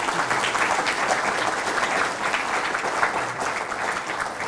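Lecture audience applauding: many hands clapping in a dense, steady patter that begins to thin out near the end.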